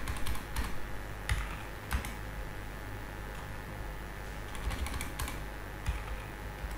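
Typing on a computer keyboard: a few scattered keystrokes near the start, then a quick cluster of key clicks about five seconds in, over a steady low electrical hum.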